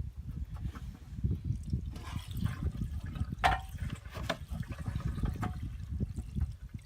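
Gasoline running and dribbling out of a small engine's open carburetor with the float bowl removed, a steady irregular trickle, with a couple of light clicks in the middle.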